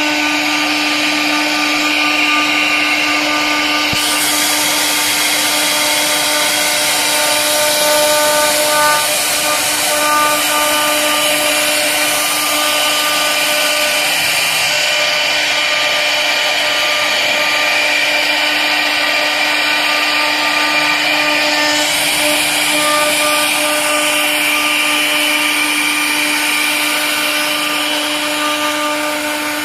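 CNC router with twin 4.5 kW water-cooled spindles carving a relief into an MDF panel. The spindle runs at a steady pitch under the hiss of the bit cutting, and the hiss brightens and dulls a few times as the toolpath changes.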